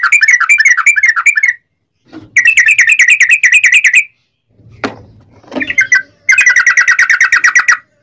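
Yellow-vented bulbul singing its rapid rolling chatter. There are three bursts of quick repeated notes, about nine a second and each lasting about a second and a half, with a couple of short single calls between the second and third bursts.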